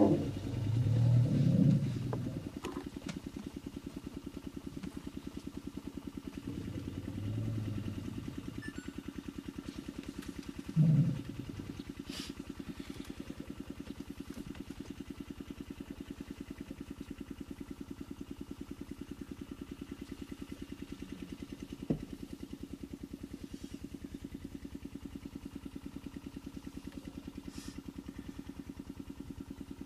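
Vehicle engine idling steadily with an even, fine pulse. Louder low sounds swell over it in the first two seconds, again around seven seconds in, and briefly near eleven seconds, with a single sharp click about two-thirds of the way through.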